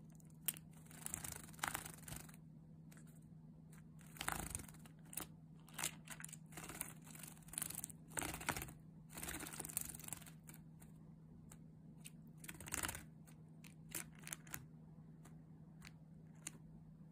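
Java sparrow bathing in a shallow water dish: short bursts of splashing as it flutters its wings in the water, repeated several times, with light clicks and taps in between. A steady low hum runs underneath.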